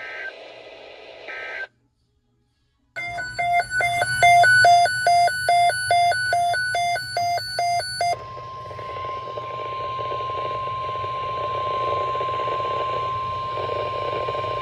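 Weather radio alert: about three seconds in, fast, even electronic beeping for about five seconds, then NOAA Weather Radio's steady 1050 Hz warning alarm tone held for about seven seconds over radio hiss. The tone is the signal that an alert message (here a flood watch) is about to be read.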